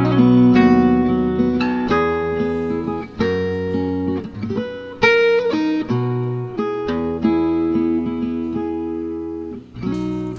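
Background music led by a plucked guitar: a string of picked notes, each starting sharply and fading, over a bass line.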